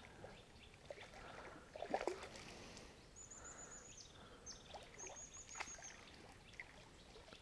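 Faint water splashing and sloshing from a hooked carp being played in close to the bank, with the sharpest splash about two seconds in. A small bird sings two short high trills in the background.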